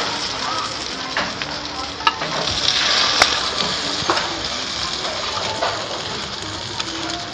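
Batter sizzling steadily in a round multi-well griddle pan, the sizzle swelling for about a second a little before the middle as fresh batter is ladled into the wells. Scattered light clicks of a metal spoon and ladle against the pan.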